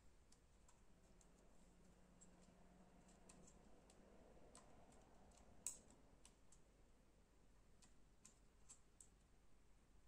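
Faint, scattered small clicks and taps of a solid state drive being handled and fitted into a laptop's drive bay, with one sharper click about halfway through.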